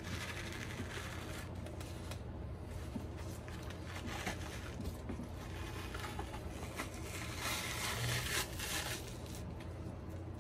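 Soft rustling and scraping of a paper towel and nitrile-gloved hands as the membrane is pulled off a rack of pork baby back ribs, a little louder about eight seconds in, over a steady low hum.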